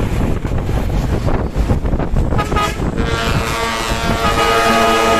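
Dump truck going by with engine and wind noise, then its ship-style air trumpet horn. The horn gives a short toot about two and a half seconds in, then a long steady blast from about three seconds in.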